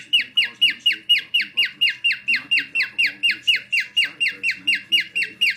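Pet bird calling in a fast, steady series of short, loud chirps, about five a second, each dropping in pitch.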